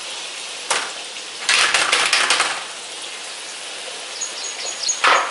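Hot oil sizzling steadily in a large kadai as kara sev fries, broken by a short clatter just under a second in and a longer burst of metallic rattling and clattering about one and a half to two and a half seconds in.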